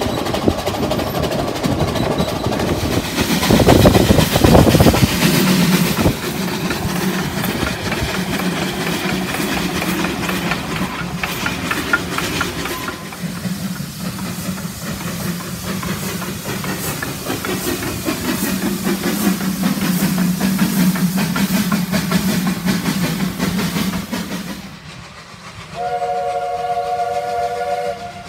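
Narrow-gauge steam trains: the rumble and clatter of a moving train heard from a carriage window, with a loud rush of noise about four seconds in, then a Welsh Highland Railway Garratt locomotive running past. Near the end a multi-tone chime steam whistle sounds for about two seconds.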